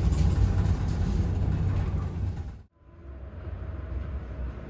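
Running noise of a moving passenger train heard inside the coach: a steady heavy low rumble. About three seconds in it gives way to a quieter rumble with a faint hum as the train arrives at a station.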